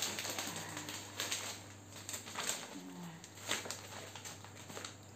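Bouquet wrapping paper rustling and crinkling in short bursts as it is folded and adjusted around the flowers.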